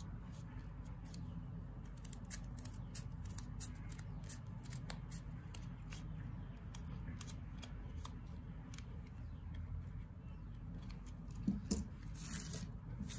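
Scissors trimming the edges of a small stack of paper pages: a run of short, irregular snips, with two louder clicks near the end.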